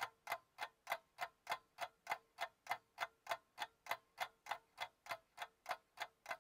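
Steady, even ticking like a clock, about three ticks a second, with a faint steady tone beneath it.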